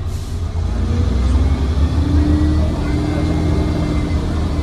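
Cabin sound of a MAN 15.220 city bus under way: its six-cylinder diesel drones low and steady, getting a little louder about a second in, with a faint whine rising in pitch over it.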